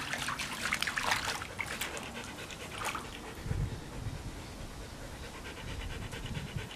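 A husky lapping and splashing at shallow water for the first few seconds, then panting fast and steadily with its tongue out, overheated on a hot day.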